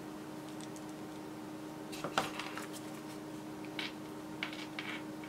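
Light clicks and taps of hard plastic gripper parts, the servo and a small screwdriver being handled, the loudest a sharp knock about two seconds in, with a few softer taps near the end, over a faint steady hum.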